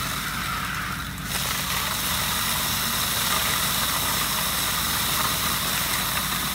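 Hasatsan H 230 vacuum hazelnut harvester running steadily: its engine hums while air is drawn through the hand-held suction hose with a hiss, which dips briefly about a second in.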